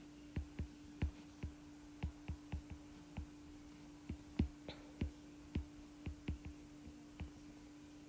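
Light, irregular taps of writing on an iPad's glass touchscreen as words are handwritten, about twenty faint clicks in small clusters, over a faint steady hum.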